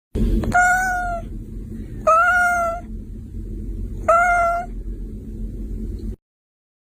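Domestic cat meowing three times, about two seconds apart, each meow a short even-pitched call, over a steady low background rumble.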